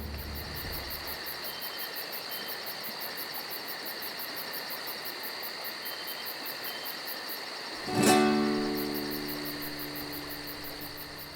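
Steady insect chirring, a high, even pulsing trill. About eight seconds in, an acoustic guitar chord is strummed once and rings out, slowly fading.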